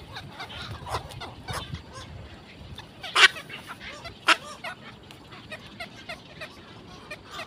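Birds calling: a steady run of short, repeated calls about three or four a second, with two much louder harsh calls about three and four seconds in.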